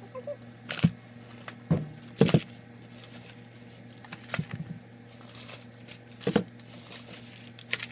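Packaged meal-kit ingredients being taken out and set down on a hard surface: irregular knocks and thumps, about seven in eight seconds, some close together.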